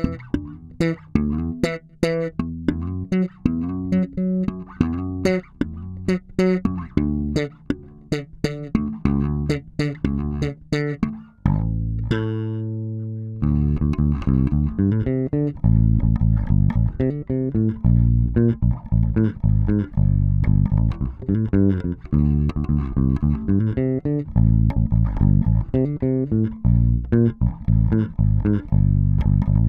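German-made 2003 Warwick Corvette Standard five-string bass with a bubinga body, fingerpicked solo. A run of quick separate notes, one held note ringing for about two seconds near the middle, then busier playing with a heavier low end.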